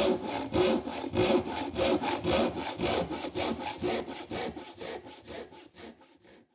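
Hand saw cutting through wood in quick, even back-and-forth strokes, about four a second, fading away near the end.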